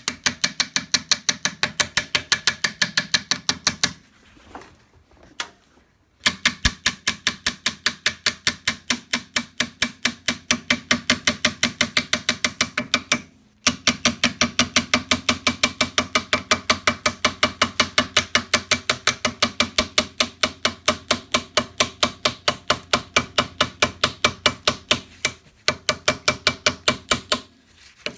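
Electric welding arc on a motorcycle's steel frame, crackling in a fast, even pulse of several clicks a second. It comes in four runs with short pauses between them, a new weld bead each time.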